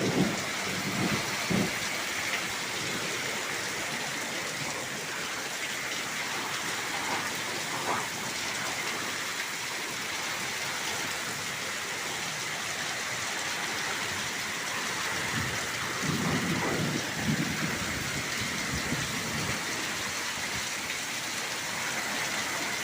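Heavy rain falling steadily in a thunderstorm, with a few short low thumps at the start and a low rumble, likely thunder, swelling about fifteen to nineteen seconds in.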